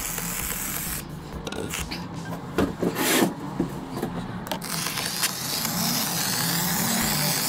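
Polyurethane mounting foam hissing out of a foam gun's nozzle as it is run along the gap between wall and panel, with louder sputtering spurts around the middle.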